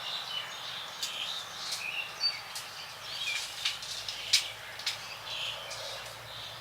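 Small birds chirping in short repeated calls, with a few sharp clicks or taps scattered through.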